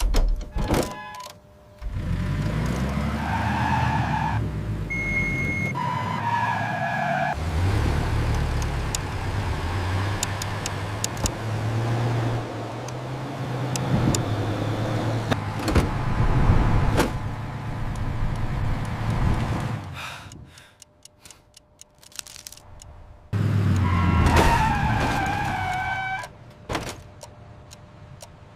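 Motor vehicle sound effect, a small truck's engine running as it drives, its pitch shifting as it goes. It cuts out about two-thirds of the way through and comes back briefly near the end.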